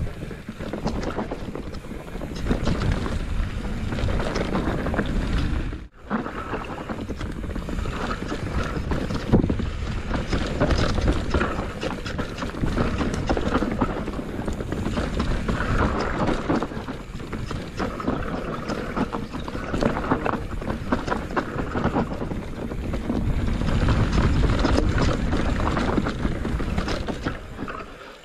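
Wind buffeting the microphone over constant rattling and knocking from riding a rough, bumpy trail, with a brief sudden drop about six seconds in.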